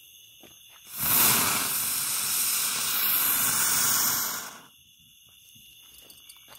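Ground firework spraying a jet of sparks with a loud, steady hiss. It starts suddenly about a second in and dies away after about three and a half seconds.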